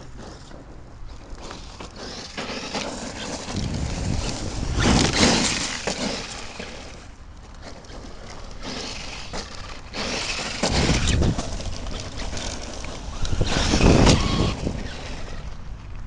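Homemade 6S brushless RC monster truck, converted from a 1/8 nitro buggy, running over rough ground. Its motor and tyres swell loudly as it comes close three times: about 4 seconds in, about 10 seconds in, and near 14 seconds.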